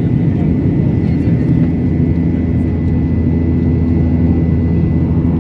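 Aircraft engine drone, a steady low hum with no change in pitch or level.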